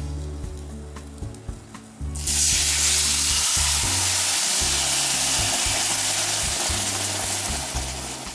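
Soy-and-mirin sauce poured into a hot frying pan of seared eggplant, sizzling loudly and steadily from about two seconds in. Before that, a few light clicks come from a metal ladle in a steel bowl of sauce.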